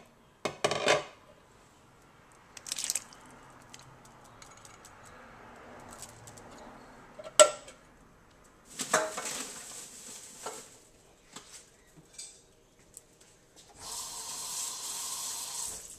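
Kitchen clatter of dishes and utensils: scattered clinks and knocks, a sharp clack about halfway through, a rougher rustling stretch a couple of seconds later, and a steady hiss near the end.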